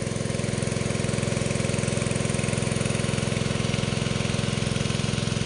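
Small engine-driven water pump running steadily at a constant speed, feeding the spray-tape irrigation.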